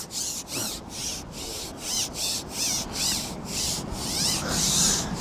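Long fishing pole being slid hand over hand, scraping as it rubs along its rest: regular rubbing strokes, about two to three a second, loudest near the end.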